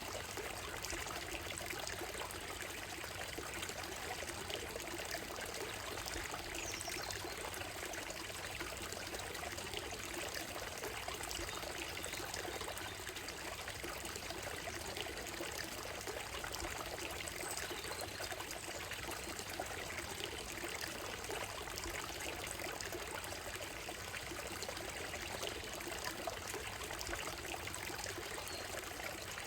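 Shallow stream of water running and trickling steadily over a gravel and stone bed.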